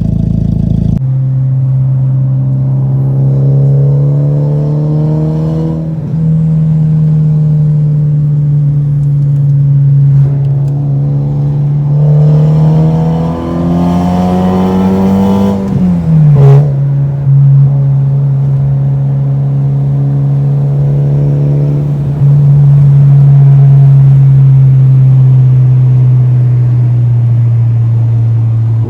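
Car engine and exhaust running under load, its drone rising and falling in pitch with the throttle, climbing for a few seconds before a sharp drop about 16 s in and stepping again later.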